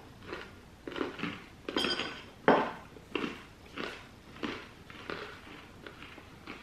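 Someone chewing a hard piece of milk-chocolate English toffee, crunching in a rhythm of roughly one to two bites a second, loudest about two and a half seconds in.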